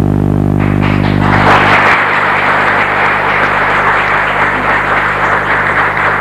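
Audience applause breaking out about a second in and continuing, over a steady low drone that fades as the clapping builds.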